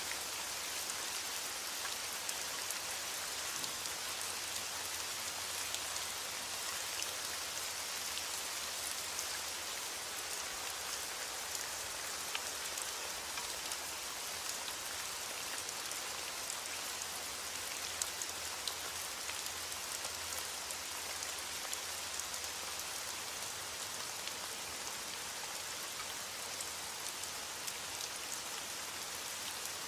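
Heavy rain falling steadily on a window pane: a dense, even hiss dotted with many small, sharp ticks of drops.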